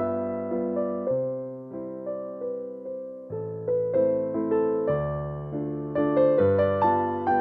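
Background piano music: a melody over slow chords, each note struck and then fading.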